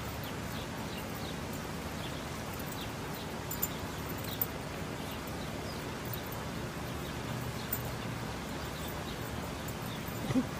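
Steady outdoor background noise with faint bird chirps repeating throughout, a few soft clicks, and a short louder low sound near the end.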